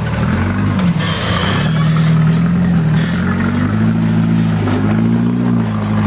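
Rock crawler's engine revving under load while the rig climbs over rock ledges. Its pitch rises and falls several times, with a few sharp knocks along the way.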